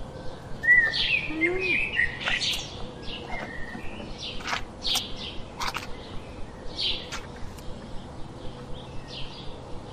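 Several birds chirping and calling: many short, sharp chirps and whistles, with a low rising-and-falling note about a second and a half in.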